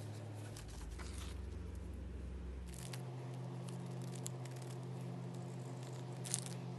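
Clear plastic wrap and a paper doily handled over slime on a cardboard cake board: a few soft crinkles and rustles, the sharpest one near the end, over a steady low hum.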